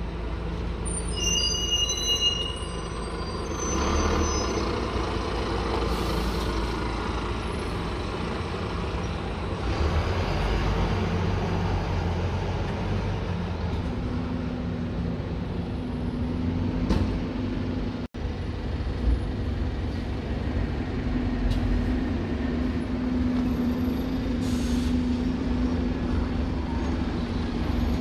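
Buses running at a bus station: steady diesel engine rumble, with a brief high squeal about a second in and short air-brake hisses. A steady engine hum joins about halfway through.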